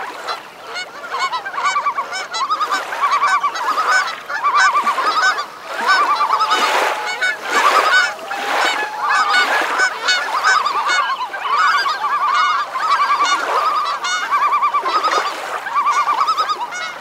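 A flock of waterbirds calling without pause, many overlapping calls in quick rapid series, with a few longer single notes among them.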